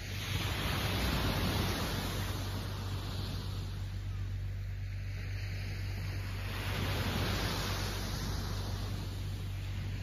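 Small waves breaking and washing up a sandy beach. The surf swells twice, about a second in and again around seven seconds.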